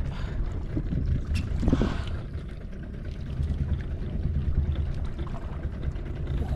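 Steady low rumble of a fishing boat at sea, with a short rising sound about two seconds in.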